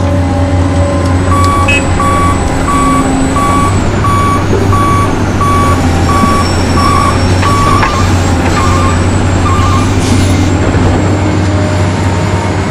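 Electronic reversing beeper of a remote-control toy truck, about one and a half beeps a second at one steady pitch, starting about a second in and stopping near ten seconds, the last few beeps breaking up. A steady low hum of the toy's simulated engine sound runs underneath.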